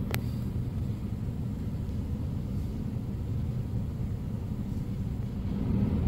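A steady low rumble, with a single sharp click just after the start.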